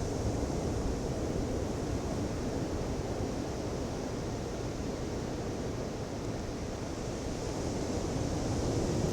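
Ocean surf washing onto a beach: a steady rushing wash of waves with no single breaker standing out.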